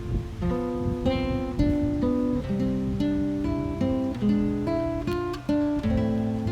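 Background music: an acoustic guitar picking a melody over chords, the notes changing every half second or so.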